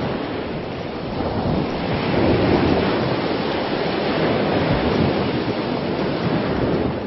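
Sea surf: a steady rush of waves washing on the shore, swelling again about two seconds in.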